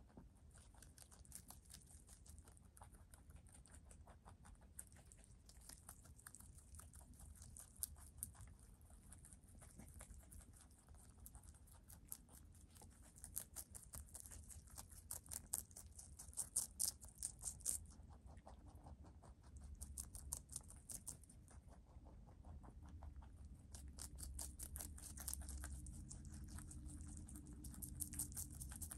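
Two rabbits chewing lettuce and other leafy greens, heard as quick, crisp crunching clicks. The crunching is busiest about halfway through and again near the end.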